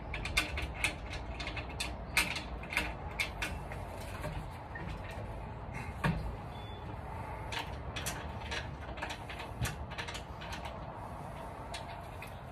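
Irregular light clicks and knocks of metal parts being handled as the leg tubes of an iOptron Tri-Pier telescope pier are worked into its hub and its clamp knobs turned. The clicks come in loose clusters throughout, over a low steady rumble.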